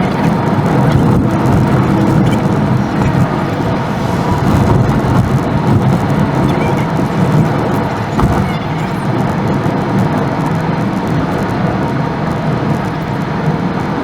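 A car driving: steady road and engine rumble.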